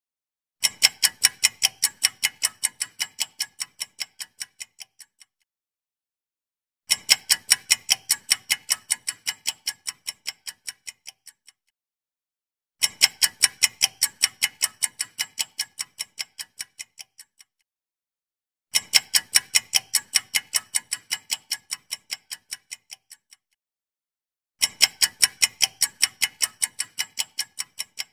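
Countdown-timer sound effect: clock-like ticking, about four ticks a second, in five runs of roughly four and a half seconds. Each run starts loud and fades out, with a short pause before the next.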